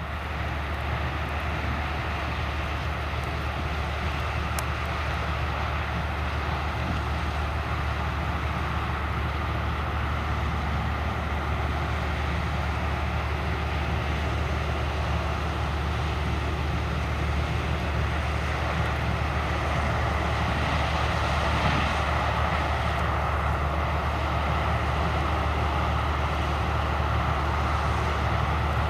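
Heavy diesel farm machinery running steadily: a constant low engine hum under a broad mechanical rush, slowly growing a little louder.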